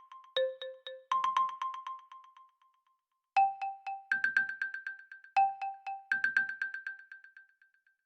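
A built-in OnePlus Nord CE 5G ringtone or alarm tone playing: a few short notes, then a fast run of repeated notes that dies away. The phrase sounds twice, then twice more at a higher pitch.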